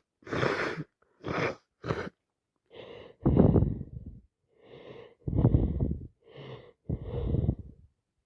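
A person with a heavy head cold sniffing a few times, then breathing hard through a blocked nose: three rounds of a short wheezy intake followed by a longer, louder blow out.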